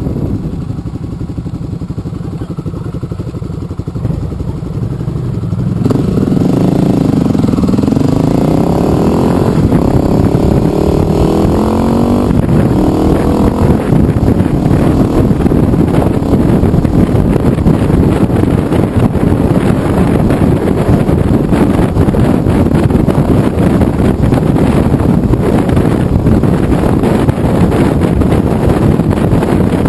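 Motorcycle engine running at low, steady revs, then pulling away about six seconds in, its pitch rising in several sweeps as it accelerates through the gears. After that it cruises steadily, with wind rushing over the microphone.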